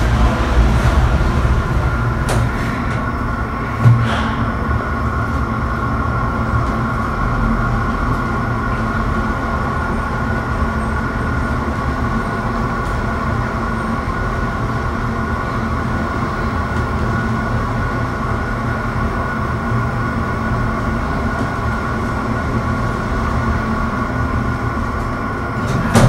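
Passenger lift car travelling upward: the steady hum of the ride, with a single knock about four seconds in.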